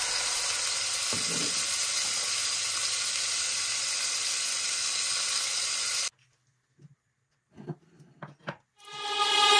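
Scallops and small whole onions sizzling steadily as they sear in hot fat in a frying pan. The sizzle cuts off suddenly about six seconds in, leaving a few faint taps, and electronic music fades in near the end.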